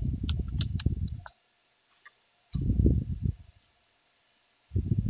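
Computer keyboard keys clicking as a terminal command is typed, the clicks thinning out after the first second. Three patches of low muffled rumble come in and out, and they are the loudest sound.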